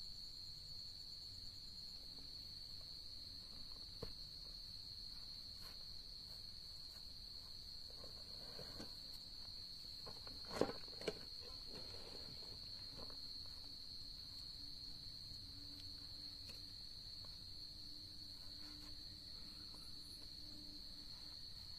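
Night insects chirring in one steady, unbroken high trill. About halfway through, two sharp knocks stand out, with soft rustling of gear being handled around them.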